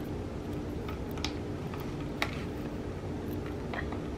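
Cat rubbing its face against a wall-mounted self-grooming brush: scattered small clicks and scrapes from the plastic bristles and mount, a few in all, over a steady low room hum.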